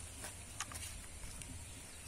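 Quiet outdoor ambience: a steady high hiss with a low rumble underneath, and a few faint short clicks scattered through it.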